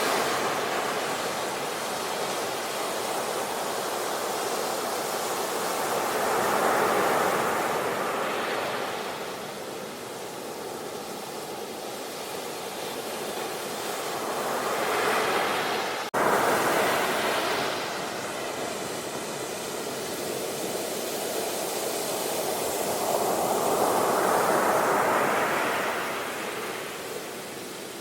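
Ocean surf breaking on a shore, swelling and fading as each wave comes in, a wave every eight to ten seconds, with a brief sharp dropout about sixteen seconds in.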